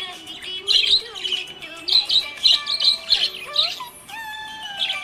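Budgie chirping and chattering: a quick run of short, high chirps, busiest in the middle, followed by a few longer drawn-out whistled notes near the end.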